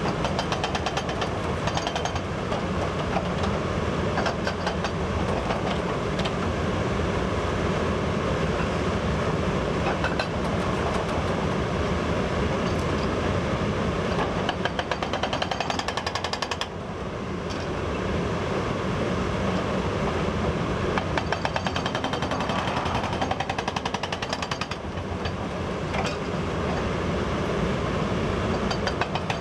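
Hydraulic hammer on a Caterpillar 324E excavator pounding a rock face in a rapid, continuous stream of blows, breaking off briefly a little past halfway before hammering on.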